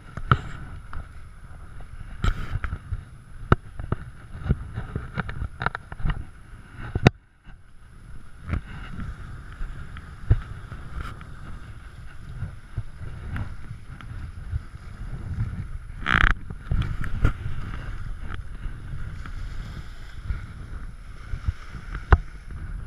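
Wind buffeting the camera microphone as a low rumble, with irregular sharp knocks and clicks from the camera being moved, over small waves washing against a lakeshore rock ledge. A short louder splash-like noise comes about sixteen seconds in.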